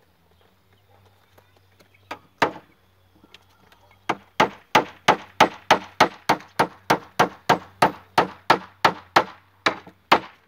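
Hammer driving a nail into wood: two taps about two seconds in, then a steady run of about three blows a second from about four seconds in.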